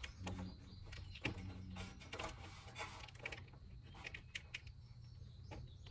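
Faint, scattered light clicks and taps of metal on metal as a car's steel front bumper reinforcement bar is lined up and worked onto its mounting studs, over a low steady hum.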